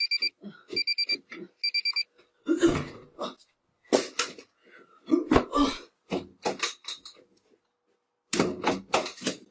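Alarm clock beeping in quick repeated groups of high beeps for about the first two seconds, followed by a rapid series of thumps, rustling and footsteps.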